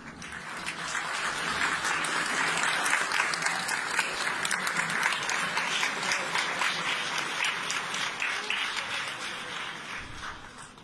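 Audience applauding, building up over the first couple of seconds and dying away near the end.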